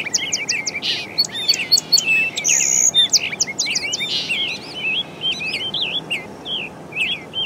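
Birds chirping and singing: many quick, high chirps and short trills one after another, busiest in the first half and thinning out toward the end.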